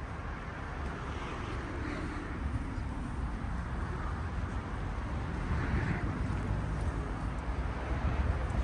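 Outdoor town ambience: a steady wash of background noise with a low rumble, like distant street traffic.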